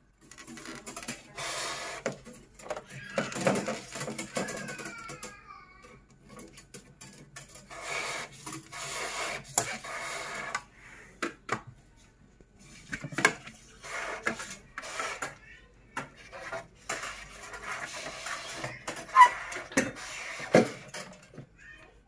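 Copper refrigerant tubing and an aluminium fin evaporator being handled and fitted inside a refrigerator's freezer compartment: irregular rubbing, scraping and light metallic clattering, with a few sharp knocks.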